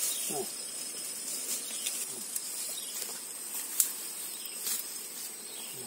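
Steady high-pitched insect chirring from the vegetation, with scattered soft rustles and clicks as tall grass and weeds are pushed aside, one sharper click a little before the four-second mark.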